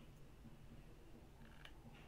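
Near silence: faint room tone with a low hum and one soft click about one and a half seconds in.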